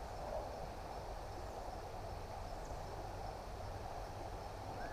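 Steady outdoor ambience of a small creek: water running over rocks as an even hiss, with a low rumble underneath.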